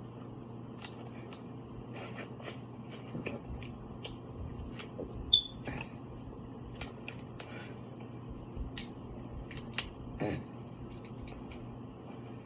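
Eating seafood boil: scattered sharp cracks and clicks of shells being broken open, with chewing. A brief, sharp high note about five seconds in is the loudest sound, over a steady low hum.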